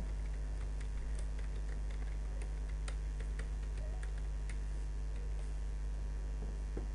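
Computer keyboard keys clicking as a line of code is typed: a dozen or so separate keystrokes, thinning out after about four seconds, over a steady low hum.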